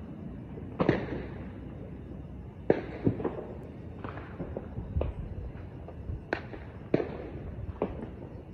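Fireworks going off: about seven sharp bangs at irregular intervals, each with a short echoing tail, the loudest about a second in.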